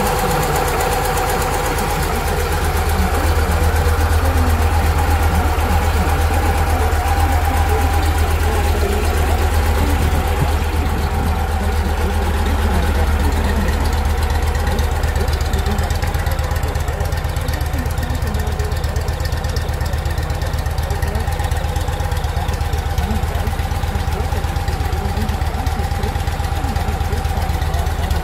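Victory Vision motorcycle's 106-cubic-inch V-twin idling steadily through an aftermarket premium exhaust.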